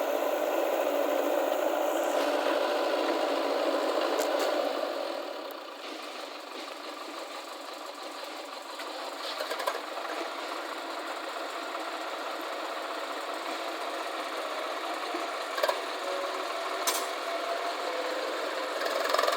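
Heavy diesel engine running steadily, louder for the first four seconds or so and then easing off, with a few short sharp knocks in the second half.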